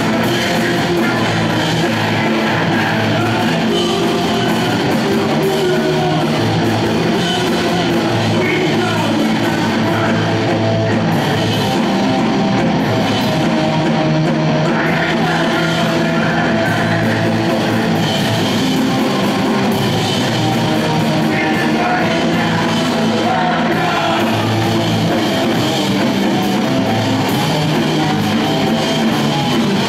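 A hardcore punk band playing live, loud and without a break: distorted electric guitars and pounding drums under shouted vocals.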